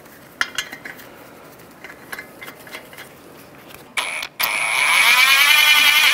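Cordless impact wrench spinning lug nuts down onto the wheel studs: a short burst about four seconds in, then a longer run whose whine rises in pitch and then holds. Before it, faint light clicks of the lug nuts being put on by hand.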